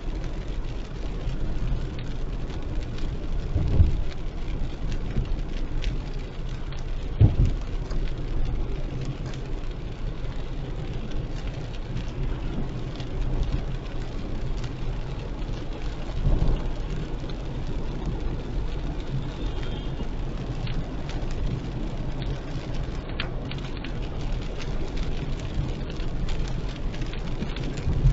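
Heavy rain falling on a car driving through a downpour, over the car's steady engine and road noise. A few dull low thumps stand out along the way.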